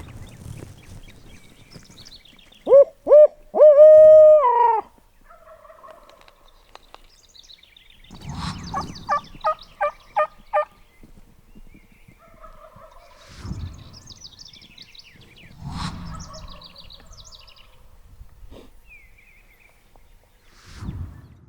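Turkey calls: three short notes and then a longer one that falls away at its end, the loudest sound, about three seconds in; later a run of about six evenly spaced short yelps. Small birds chirp faintly in between.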